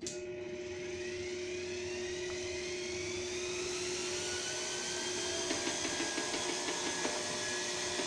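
Promaker PRO-SP400 400 W electric blower vacuum, used as a blower, switched on: its motor whines up to speed over the first few seconds, then runs steadily at its low second speed setting with a rush of air. From about five and a half seconds in, wood shavings and sawdust rattle as the air blows them across the bench.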